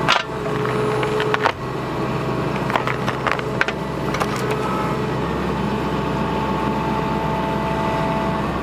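Bobcat mini excavator's engine running steadily under hydraulic load as it pulls a tree out, with a few sharp cracks of wood breaking in the first few seconds.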